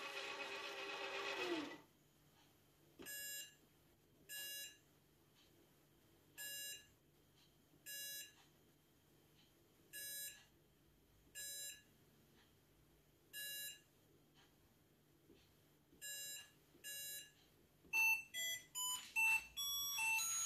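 Toy ATM money bank's touch-screen keypad beeping: nine short, buzzy electronic beeps at uneven intervals as keys are pressed, then a quick run of tones of different pitches near the end. A mechanical whirr winds down in the first two seconds.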